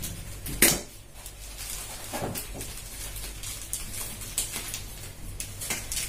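Plastic mailer bag rustling and crinkling as it is handled and pulled open, with one louder crinkle about half a second in and scattered lighter crackles after it.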